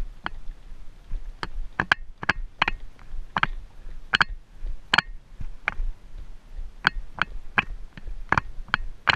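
Shod horse's hooves clicking on rocky, dry ground at a walk, a sharp click every half second to a second, over a faint low rumble of wind and movement.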